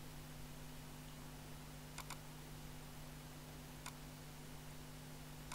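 Computer mouse clicks over a low steady hum and hiss: a quick double click about two seconds in, then single clicks near four seconds and at the end.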